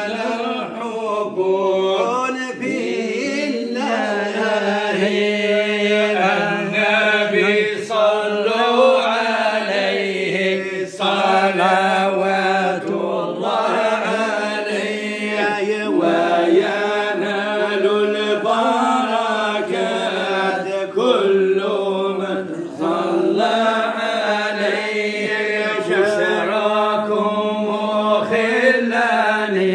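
A group of men chanting Arabic devotional praise of the Prophet (madih). Long, drawn-out melismatic lines run over a steady low held note.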